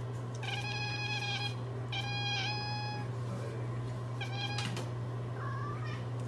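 Domestic cat meowing in long, drawn-out, steady-pitched calls: two of about a second each, a shorter one, then a brief rising one near the end. A steady low hum runs underneath.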